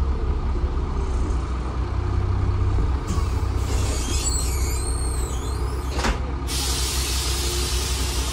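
TransBus Trident double-decker bus's diesel engine running under way, as heard on the upper deck, its low note dropping about three seconds in. There are high squeaks and one knock about six seconds in, then a steady hiss near the end.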